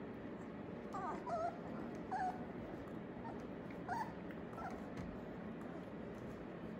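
Four-week-old Australian Labradoodle puppies letting out a handful of short, high, squeaky yips and whimpers while they wrestle in play. The calls come in brief clusters about one, two and four seconds in.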